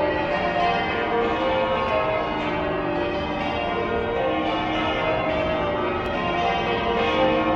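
Church bells pealing continuously, many bells ringing in a steady, overlapping sequence.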